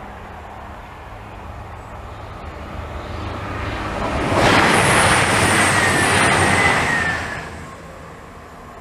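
A vehicle passing by: a rush of noise swells about four seconds in and fades away near the end, with a faint whine that falls slightly in pitch as it goes.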